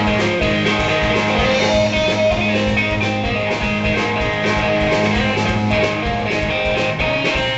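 Live band playing an instrumental passage: electric guitar over a steady drum beat, with no singing.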